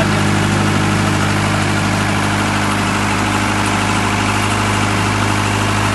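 4-cylinder 62 kVA diesel generator set running at a steady speed with an even engine hum, freshly started.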